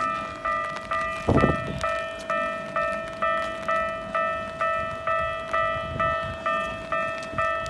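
Japanese railway level-crossing warning bell ringing, an electronic ding repeating about twice a second on the same few pitches. A brief low rumble about a second in.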